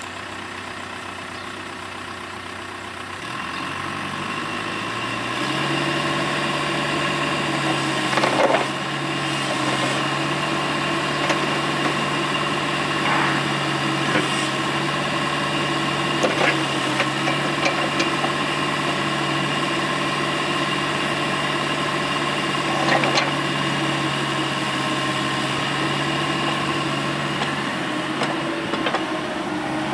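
Cat 305E mini excavator's diesel engine running, throttled up from idle a few seconds in and then holding a steady higher speed, with several short clunks along the way.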